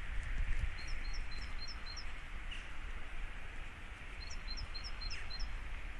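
A small songbird singing two phrases, each of five quick, high two-part notes at about four a second, over a steady outdoor hiss.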